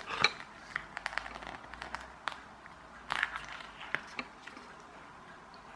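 Scattered small clicks and crackles of fingers handling and prying at the foam wing and the small motor's plastic mount, with the loudest clusters about a quarter second in and around three seconds in.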